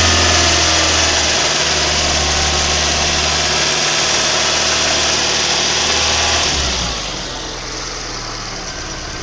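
VAZ-2109 (Lada Samara) four-cylinder petrol engine held at raised revs, around 2,500 rpm, with a ringing extraneous knock whose cause the owner cannot identify. About seven seconds in the revs fall back and the engine settles to a quieter idle.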